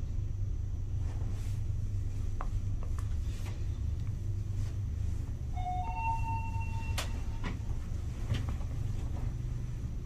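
A Fujitec elevator car travelling upward between floors, with a steady low rumble from the ride and a few light clicks. About six seconds in, a brief two-note electronic tone sounds, low then higher, and ends on a click.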